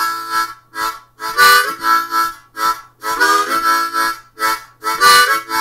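A beginner playing a boogie on a harmonica cupped in both hands: short chordy, breathy phrases broken by brief pauses, with a few bent notes about halfway through.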